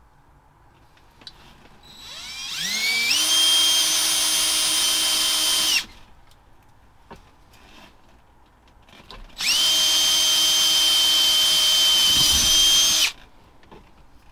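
DeWalt cordless drill running twice, a few seconds each, boring into the truck's dash switch panel. The first run winds up in pitch as it comes to speed; the second starts at full speed and cuts off abruptly.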